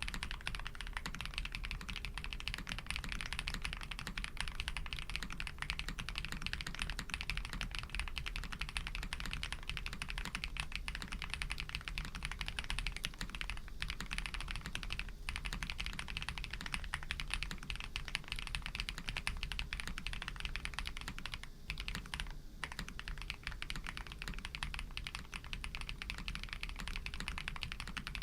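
Steady fast typing on a Tiger Lite 80 custom mechanical keyboard fitted with Krytox-lubed Pado v2 switches, a polycarbonate plate, full foam and GMK keycaps: a dense run of keystrokes with a few short breaks.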